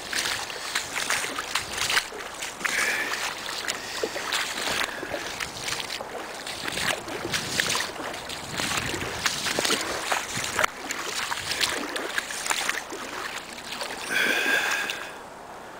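Rubber boots wading through shallow, icy floodwater: a steady run of sloshing, splashing steps, with a short squeaky tone near the end.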